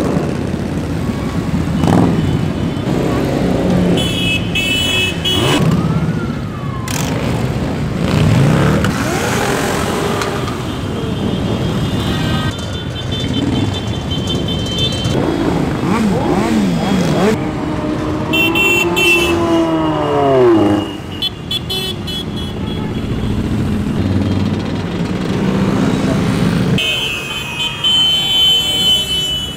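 A procession of many motorcycles riding slowly past, with engines revved over and over so the pitch keeps rising and falling.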